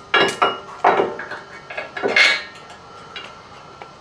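Bolts and hardware being handled at a steel bumper bracket, giving several sharp metallic clinks in the first half, the loudest about two seconds in.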